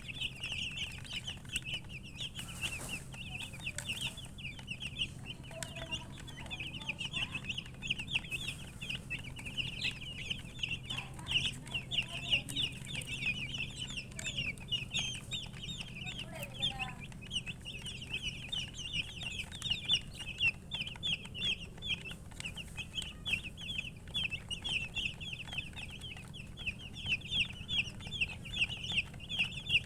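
Baby chicks peeping continuously, a dense stream of short high-pitched cheeps, with a few lower clucking calls now and then. A steady low hum runs underneath.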